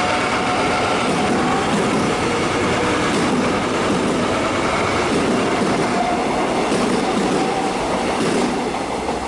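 X'Trapolis electric multiple unit pulling out and running past at close range: steady noise of steel wheels on rail, with a few faint steady tones in it.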